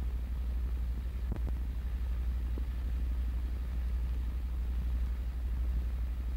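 Steady low electrical hum with faint hiss from an old film soundtrack, with a couple of sharp clicks about a second and a half in.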